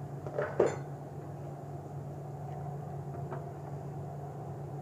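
Steady low hum in the kitchen, with a short clatter about half a second in and a few faint scrapes of a spatula in a nonstick pan of cooked upma.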